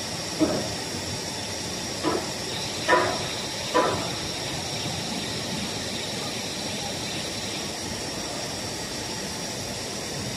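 Steady machine noise with a high hiss from a running 3D printer filament extrusion line as its winder fills a spool. Four short sharp knocks come in the first four seconds.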